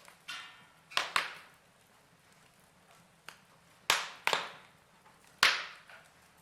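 Wood fire crackling: a handful of sharp, separate pops, each dying away quickly, roughly one every second, over a faint low hiss.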